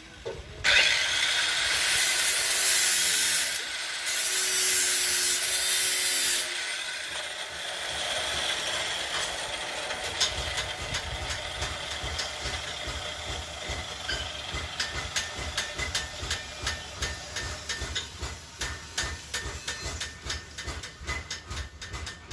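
Workshop tool work on a steel knife handle: a loud hissing, whining noise for about six seconds, then a long run of steady, rhythmic rubbing strokes, like a saw or file worked by hand.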